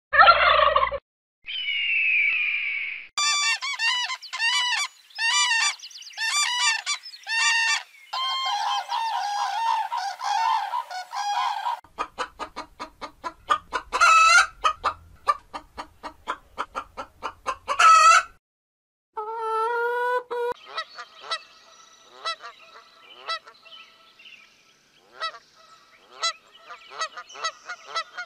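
A run of bird calls. A high falling scream comes twice near the start, then a series of repeated goose honks, then a flock of chickens clucking rapidly, and scattered quieter calls near the end.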